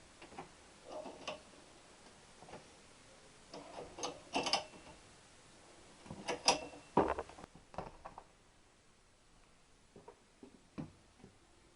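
Scattered clinks and knocks of metal exhaust pipes being handled and set down, a few with a brief metallic ring, loudest about six to seven seconds in.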